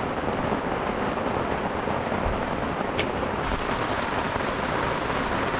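Heavy downpour, rain falling hard and steadily like a waterfall. A single sharp click about three seconds in.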